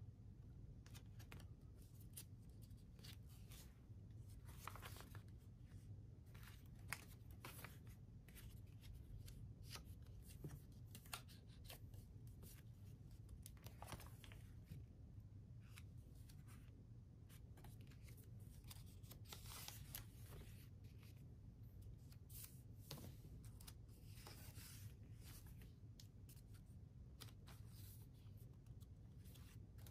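Faint rustling and flicking of paper as the collage-thickened pages of a Hobonichi Cousin journal are turned one after another, over a low steady hum.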